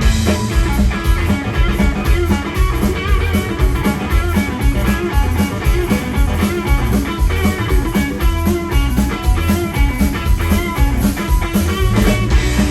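Live blues band playing an instrumental passage: guitar over bass guitar and a drum kit, with a steady beat.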